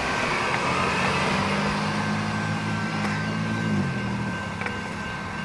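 Diesel transit bus engine running as the bus drives off, its pitch dropping about three and a half seconds in and then fading. A railroad crossing's warning bell rings steadily over the street traffic.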